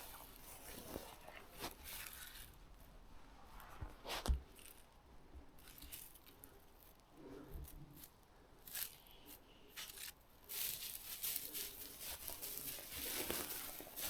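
Faint, irregular crunching and rustling, with one sharper knock about four seconds in; the rustling grows louder and denser from about ten and a half seconds.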